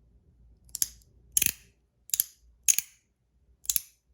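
Magnetic fidget slider snapping from side to side: five sharp, metallic clicks at uneven gaps.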